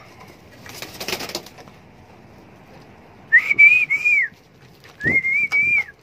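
A person whistling two long, clear notes a second or so apart, each held steady with a slight waver and dropping at the end, to call caged pigeons. A short rustle comes just before the whistles.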